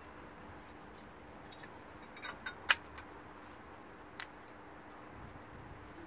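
A few sharp metallic clicks and knocks about two seconds in, the loudest just before three seconds, and one more a little past four: a new front brake pad's steel backing plate knocking against the caliper carrier and its spring clips as it is fitted.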